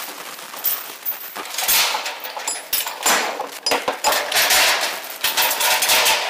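Steel transport chain clattering and rattling as it is pulled by hand through the eye of a steel coil, the links knocking against each other and the metal edge protectors. It comes in a string of rapid bursts, one after another.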